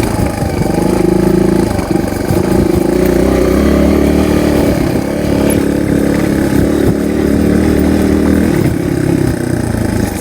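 Single-cylinder dual-sport motorcycle engine running as the bike rides along a dirt trail, its pitch rising and falling with the throttle.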